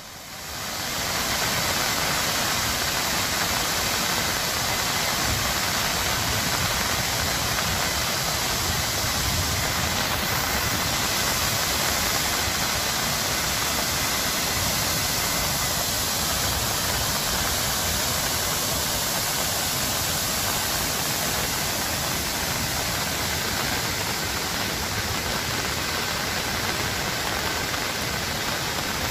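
Flood water rushing through a dam's raised spillway gates: a steady, loud rushing that fades in over the first second or so.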